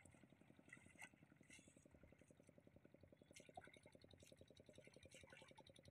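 Near silence, with a faint distant engine pulsing evenly and rapidly underneath.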